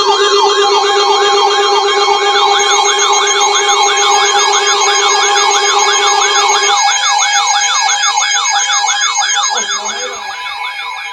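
Several electronic weather-alert tones sounding at once: rapid up-and-down siren sweeps, about three a second, layered over steady tones, signalling a newly issued tornado warning. The lowest steady tone cuts off about two-thirds of the way through, and the tones grow quieter near the end.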